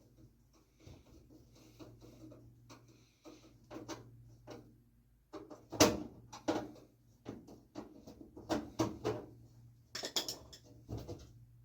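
Knocks, clicks and clunks of tools and sheet-metal furnace parts being handled during a blower motor removal, irregular, with the loudest knock about six seconds in.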